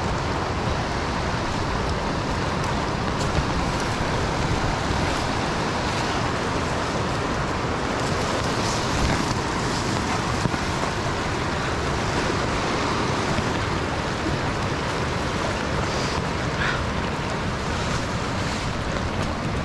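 Steady rush of the Youghiogheny River's fast-flowing water, an even wash of noise that holds without a break.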